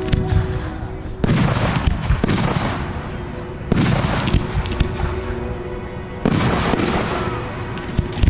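Aerial fireworks shells bursting overhead: three loud booms about two and a half seconds apart, each followed by a hiss that fades away, with a few sharper single reports in between.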